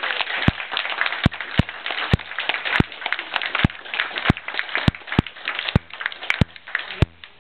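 Wedding guests applauding, a dense patter of hand claps with sharp clicks scattered through it, dying away near the end.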